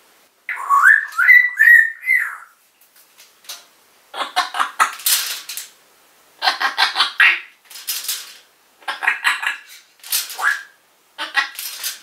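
African grey parrot vocalising: a quick run of short rising whistles, then several separate bursts of raspy, noisy chatter.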